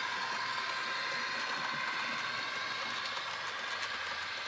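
Model railway freight train rolling past on the layout: a steady whir of the small electric motor and wheels running on the track, with light clicks from the wheels in the second half.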